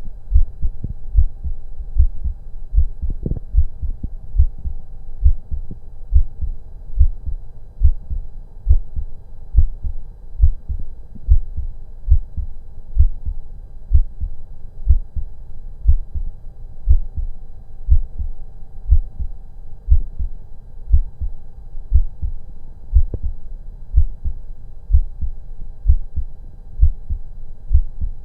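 A human heart heard through a stethoscope on the chest, beating steadily with low double lub-dub thumps a little over once a second.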